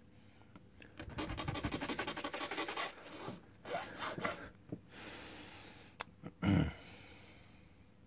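A small file rasping across the edge of a key blank, a long run of quick rasping strokes starting about a second in, then a few shorter scrapes. This is lock impressioning: the cut at an impression mark is being filed down. A dull thump comes near the end.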